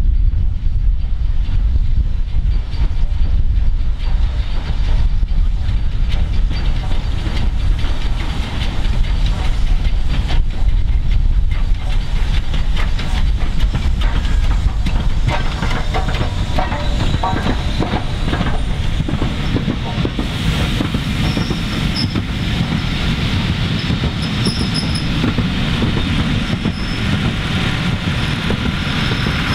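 A steam-hauled train of coaches, behind LMS Royal Scot Class 46115 Scots Guardsman, rolling slowly through a station with a heavy rumble and wheels clicking over rail joints. From about two-thirds of the way through, a thin high squeal of brakes or wheels joins in as the train slows for a water stop.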